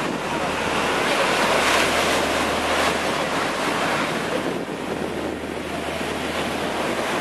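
Ocean surf rushing on a beach, a wide even wash of noise that swells about two seconds in and eases off after four and a half seconds, with wind rumbling on the microphone.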